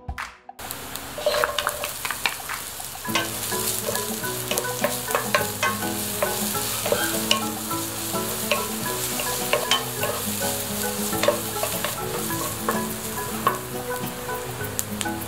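Chopped red onion, garlic and ginger sizzling and frying in a nonstick pan while being stirred with a wooden spatula. The spatula scrapes and clicks against the pan again and again.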